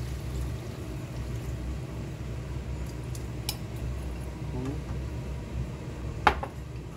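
Spoon and ceramic mug clinking as soy-sauce seasoning is scraped into a frying pan. A few light clinks come first, then one sharp clink near the end, the loudest sound, over a steady low hum.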